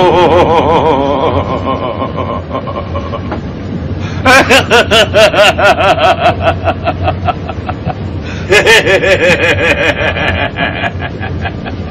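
People laughing heartily in three long bouts, each a quick run of pulsed ha-ha sounds, over a steady low rumble.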